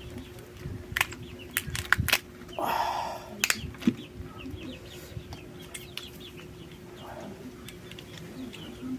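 Close-up eating noises: several sharp clicks and cracks in the first few seconds and a short noisy burst about three seconds in, typical of crunching and sucking on crab and shellfish. Faint bird chirps sound in the background.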